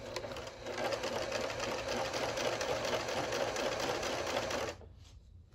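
Pfaff 6152 sewing machine stitching at its fast pedal speed through folded fabric: a steady, rapid run of needle strokes that picks up about half a second in and stops shortly before the end.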